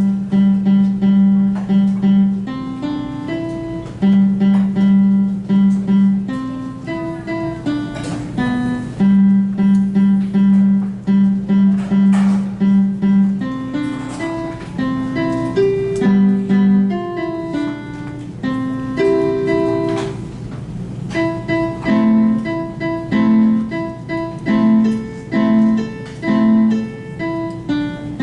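Solo instrumental performance: a simple melody of single notes, often the same note repeated several times in a row, at a moderate steady pace.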